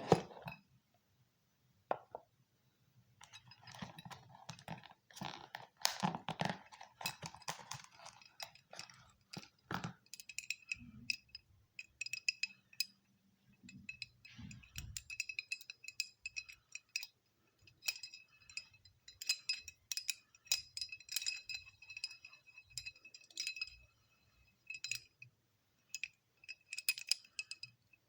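A Pokéball-shaped fidget spinner being handled: a few seconds of rustling and rubbing, then many light clicks and clinks, each ringing with a bright tone.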